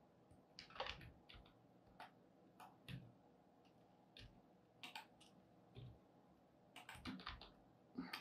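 Faint computer keyboard keys and mouse buttons clicking irregularly, a scattered handful of short taps with a small cluster near the end.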